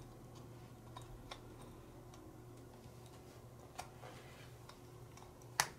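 Small metal parts of an all-metal radial engine model kit clicking and tapping as the front cover plate is handled and pressed onto the crankcase, a few faint ticks scattered through, with one sharp, loud click near the end.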